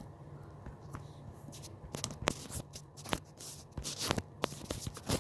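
Sticky homemade glue slime being kneaded and pulled by hand with a little flour mixed in, giving irregular sharp clicks and crackles.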